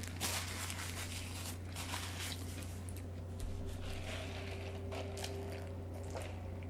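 Quiet eating and food-handling noises: faint crinkling and scattered small clicks over a steady low electrical hum.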